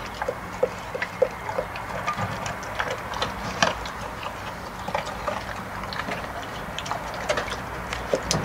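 Border collie–rottweiler cross eating from a stainless steel bowl: irregular clicks and clinks, a few a second, as its mouth and food knock against the metal.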